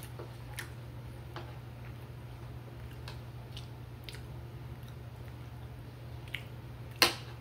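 A person chewing scrambled eggs, with small clicks of a spoon on the plate and one sharper click near the end.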